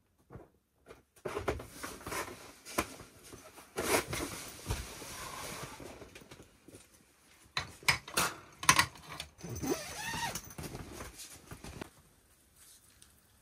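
Irregular rustling, knocks and sharp clicks, as of things being handled at close range. The loudest clicks come around four and nine seconds in, and it falls quiet about twelve seconds in.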